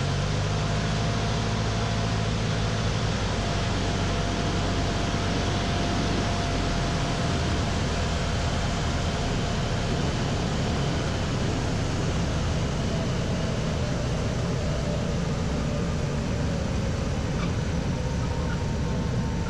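Single-engine Pitts S-1S biplane on final approach and landing: the engine's low, steady drone under a constant rush of air noise. The engine's even note is clearest for the first several seconds, then blends into the rush.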